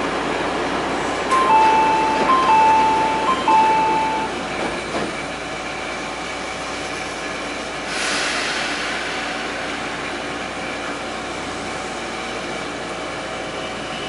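Nagano Electric Railway train's onboard announcement chime: a two-note chime, a short high note then a longer lower one, sounded three times over the train's steady running noise. A brief hiss comes about eight seconds in.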